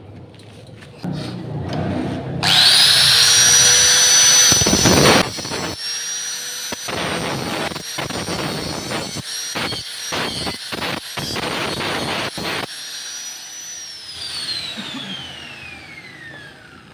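Angle grinder starting up with a rising whine that settles at full speed. It then grinds the stick weld between two steel tubes in a series of short passes. It is switched off and whines down over the last few seconds.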